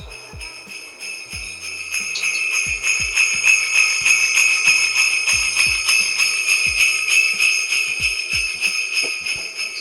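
Sleigh bells jingling steadily and loudly, with short dull low thumps every so often underneath.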